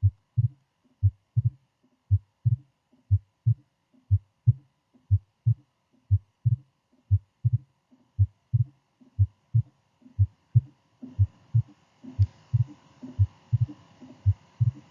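Human heart sounds as heard on auscultation: a steady lub-dub of paired low thumps about once a second. It is presented as the second heart sound (S2), made by the closing of the aortic and pulmonary valves. A faint hiss comes in about 11 seconds in.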